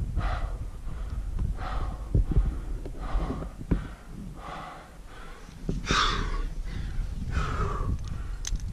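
A climber's hard, heavy breathing close to the microphone, about one sharp breath a second, the loudest about six seconds in. This is the laboured breathing of climbing with a heavy pack at about 6000 m. A few sharp knocks come from gear or rock.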